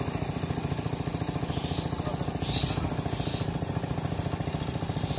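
Small engine running steadily with a fast, even chug, most likely the pump engine draining the pond through the hose. A few short splashes come near the middle.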